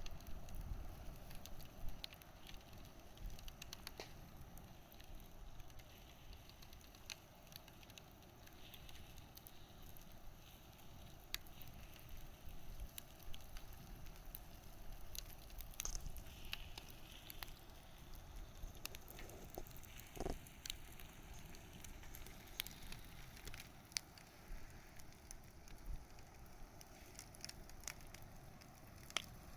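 Wood bonfire crackling softly, with irregular sharp pops and snaps over a faint hiss.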